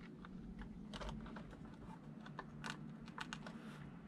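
Light, irregular clicks and taps of a small plastic RC truck body being handled and prodded, several in quick clusters about a second in and again near the three-second mark.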